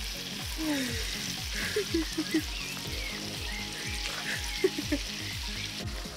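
Shashlik skewers and sausage sizzling in a disc pan (tárcsa) over a wood fire, a steady frying hiss, with background music and its regular low beat underneath.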